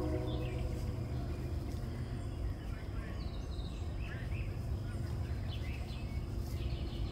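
Outdoor ambience: scattered short, high bird chirps over a steady low rumble. A held tone of several pitches at once fades out in the first half second.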